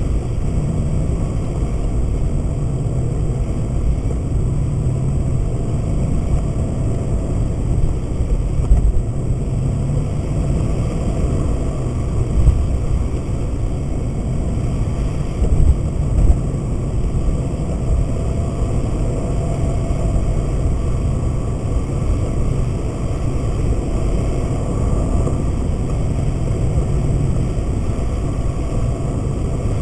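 Road and engine noise inside a moving car's cabin: a steady low rumble, with a few brief louder bumps near the middle.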